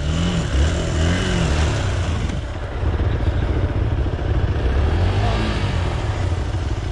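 Motorcycle engine running over rough off-road ground, its revs rising and falling a few times over a steady low rumble.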